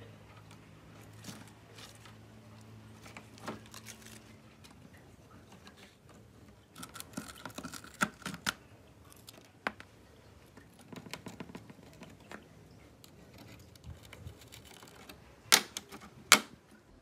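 Small metal clicks, taps and scrapes of a screwdriver working the hinge screws of a dirty aluminium MacBook case. Two sharp metal clacks near the end as the hinge brackets are handled against the case.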